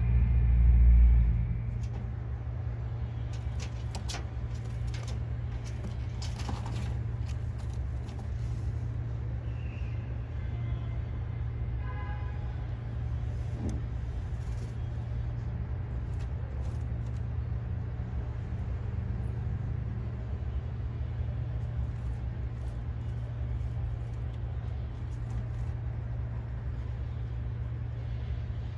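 Steady low rumble, with a few faint clicks and a brief high-pitched squeak about twelve seconds in.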